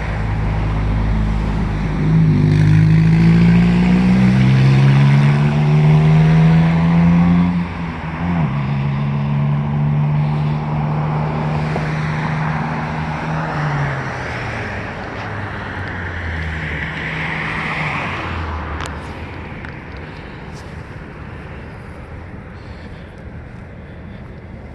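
A road vehicle's engine accelerating. Its pitch rises for several seconds, then there is a gear change about eight seconds in, and it runs on steadily before fading away with tyre hiss over the last several seconds.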